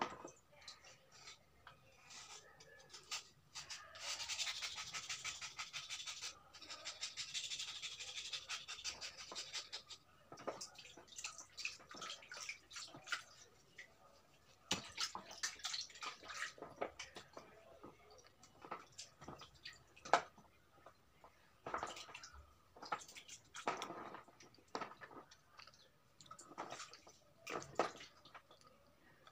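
Slate stone being washed by hand in a basin of water: water sloshing and dripping, scattered clicks of stone, and a run of fast rasping scrubbing on the stone from about four to ten seconds in.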